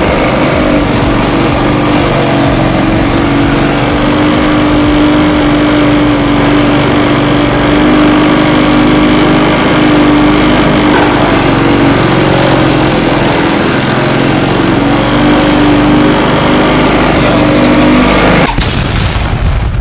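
Grass chopper machine (chaff cutter for livestock feed) running steadily and loud, with a constant humming tone, until the sound changes abruptly near the end.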